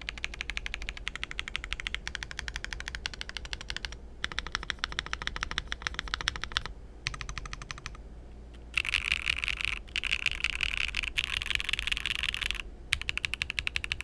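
Mechanical keyboard with Akko V3 Cream Yellow Pro linear switches and a polycarbonate plate (a Monsgeek M3 TKL), typed on quickly in several runs of rapid keystrokes separated by short pauses. The runs in the second half are louder and brighter.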